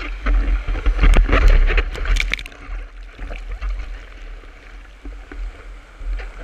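Whitewater rushing and splashing around a surfboard carried along by a broken wave, with irregular splashes loudest in the first couple of seconds and easing off after that. Water and wind buffet the board-mounted camera's microphone as a deep rumble underneath.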